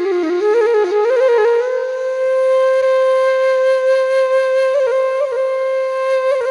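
Background music: a solo flute plays a few quick ornamented notes, then holds one long steady note.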